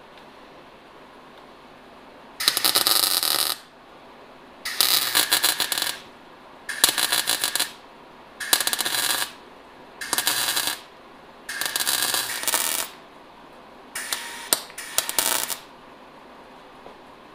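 MIG welder stitch-welding a sheet-steel rocker patch panel seam. The arc crackles in about seven short welds of roughly a second each, with a pause of about a second between them.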